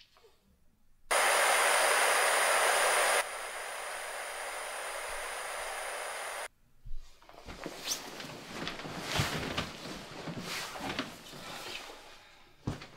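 Television static hiss comes on suddenly, drops to a lower volume about two seconds later and cuts off sharply halfway through. Then comes irregular rustling of a jacket and bedding as a person settles back onto a bed, with a sharp knock near the end.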